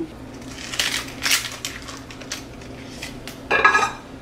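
Plastic spatula scraping and crunching as it is worked under a slice of baked chicken pizza crust on parchment paper, then a short ringing clatter of a utensil or dish about three and a half seconds in.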